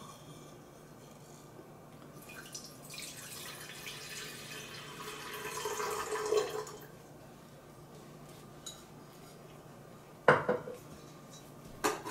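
Water pouring into a stainless steel gooseneck electric kettle for about four seconds, starting a couple of seconds in, its rush dropping in pitch as it goes. A sharp clack follows near the end.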